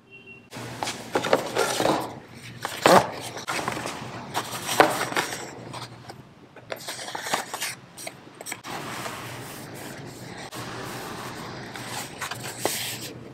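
Hands handling spools of thick fabric ribbon on a countertop: the ribbon and spools rustle and scrape, with a few sharp knocks about three and five seconds in.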